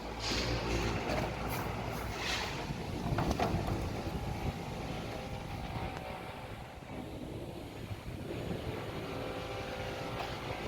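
An engine or motor running steadily, with a few short knocks and clatters in the first few seconds.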